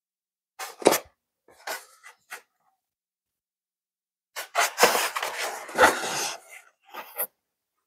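Foam model jet fuselage being handled and lifted out of its polystyrene packaging tray: a few short scrapes and knocks, then a longer rubbing of foam against foam from about four and a half to six and a half seconds in, ending in a couple of light clicks.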